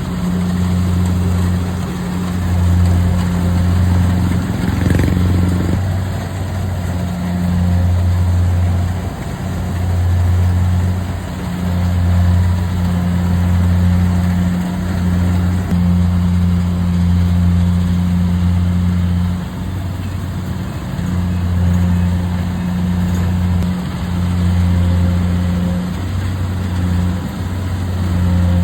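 Engine of a rice harvesting machine running steadily under load, a low hum that swells and dips every second or two.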